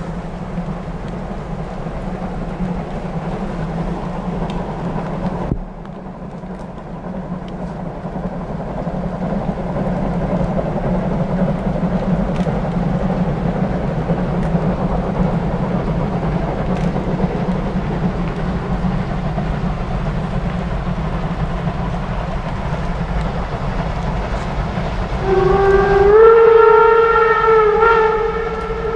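Two class 01 steam express locomotives double-heading uphill under heavy load; their exhaust is a steady low rumble that grows louder as they approach. Near the end a steam whistle blows for about three seconds.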